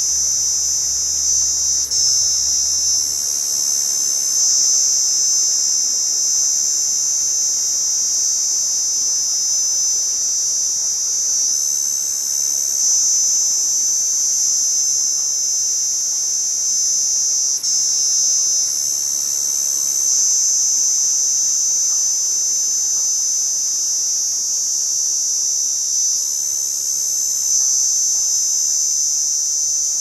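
Cicada singing: a loud, continuous high-pitched buzz that swells slightly about every seven or eight seconds.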